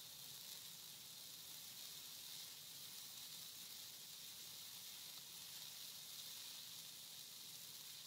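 Faint, steady hiss of a large fire of dry Christmas trees burning high in a backyard fire pit.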